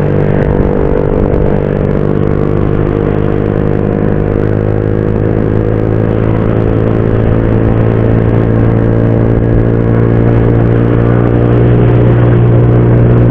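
Motorcycle engine running at a steady cruise under wind and road noise, getting a little louder near the end.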